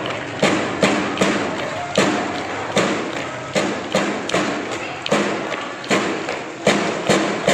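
School marching drum band playing: drums beat a steady rhythm with a heavy accented hit about every 0.8 seconds and lighter strokes between, over sustained pitched melody notes.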